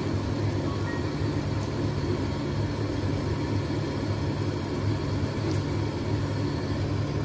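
Steady low electrical hum with a rumble beneath it, from a running appliance, broken only by two faint clicks.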